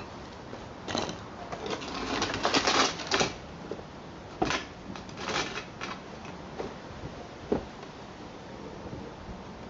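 Irregular light knocks and clatters of wooden pallet boards being handled and shifted, in short clusters with gaps between.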